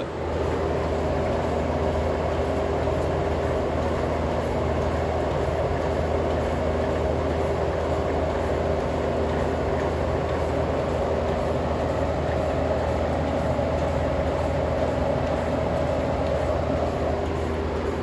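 Milking machine running on a cow: the vacuum-driven claw and milk hose give a steady mechanical hum with a hiss of air and milk flow.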